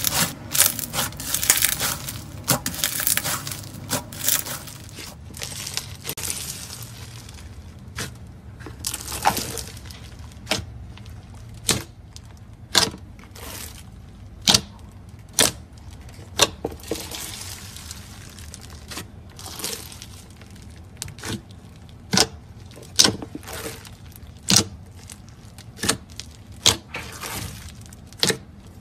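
Slime being squeezed and kneaded by hand. First a few seconds of dense crunching and crackling as a foam-bead slime is squeezed, then sharp sticky pops and clicks, about one a second, as a soft bead-studded slime is pressed and stretched.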